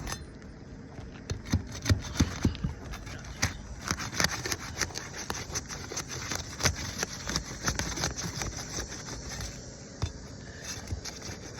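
Asphalt roof shingles being pried loose during a repairability test, scraping and crackling with many irregular sharp clicks as the sealant strips let go.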